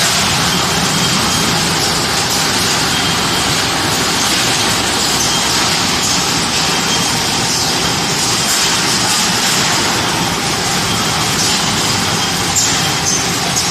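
Automatic salt-pouch baler packing machine running: a steady mechanical hiss and hum with a faint high tone that comes and goes, and a few light clicks near the end.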